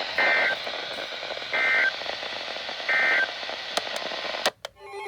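Three short bursts of Emergency Alert System (SAME) data tones over steady radio hiss: the end-of-message code that closes an alert. A few sharp clicks follow, and the audio cuts out briefly near the end.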